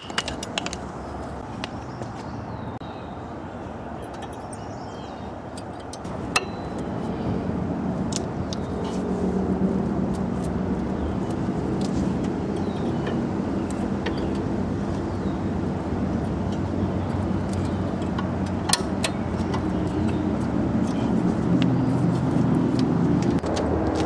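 Low steady hum of a running motor that grows louder about six seconds in, with a few sharp metallic clicks from brake pads and caliper parts being handled.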